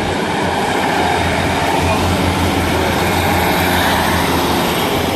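A Class 156 Sprinter diesel multiple unit's diesel engines running hard as the train pulls away and accelerates, with a steady low rumble that throbs through the middle.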